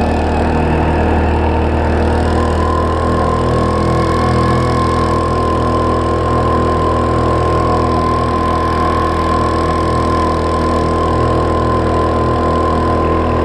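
Small 3.5 hp four-stroke outboard motor running steadily, pushing a small aluminium boat along under way.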